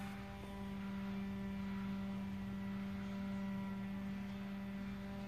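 A steady low hum, one pitch with a ladder of fainter higher overtones, unchanging in level.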